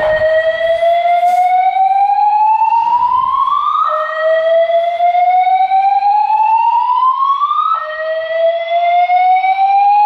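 EST Genesis fire alarm speaker strobes sounding a loud slow-whoop evacuation tone. The tone rises steadily in pitch over about four seconds, then drops back and rises again, three times.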